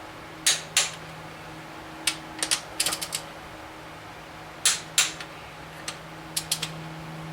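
Torque wrench ratcheting and clicking in short clusters as the cylinder head bolts are tightened to 60 foot-pounds on the final pass of the sequence. A few louder single clicks stand out among the lighter ratchet clicks.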